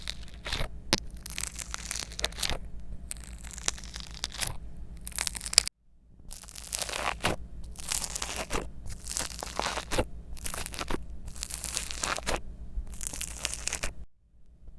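Slime being squished and stretched, making dense, irregular crackling, popping and tearing sounds over a steady low mains hum. The sound drops out briefly about six seconds in and again near the end.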